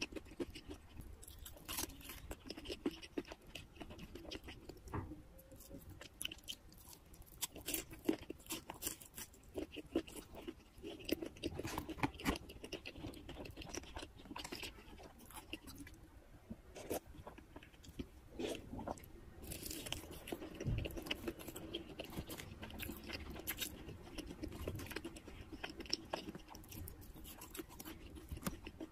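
Close-miked chewing and crunching of crispy fried chicken pieces topped with cheese sauce, with irregular crunches throughout.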